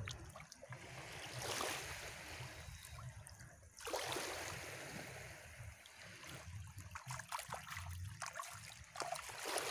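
Hands splashing and sloshing in shallow seawater, with swells of splashing about a second and a half in, about four seconds in, and again near the end.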